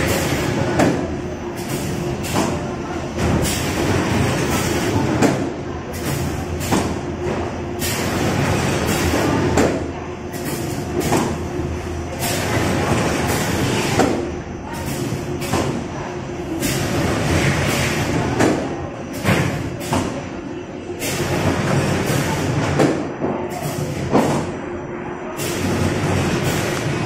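Corrugated box-making machine running as it conveys flat cardboard blanks on its belts: a steady mechanical hum under frequent, irregular knocks and clatters.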